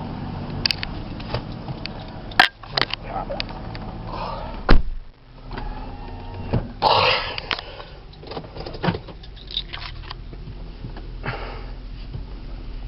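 Car running with a steady low hum, with scattered clicks and one sharp knock about four and a half seconds in, and a short vocal sound near seven seconds.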